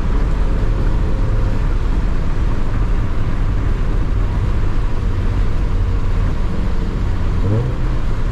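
Manual-transmission car driving, with a steady engine drone and road noise. About seven seconds in, the engine pitch rises briefly.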